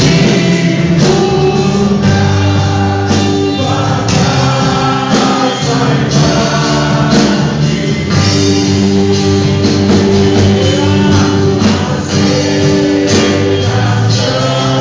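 Gospel worship band playing, with singing over the instruments.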